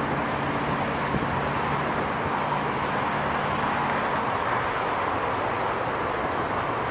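Steady hiss of freeway traffic, cars passing over a concrete overpass, with a low engine hum that fades out about halfway through.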